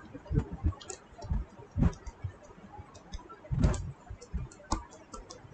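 A stylus tapping and clicking on a tablet screen while handwriting, in irregular light clicks with two louder knocks, about two seconds in and near four seconds.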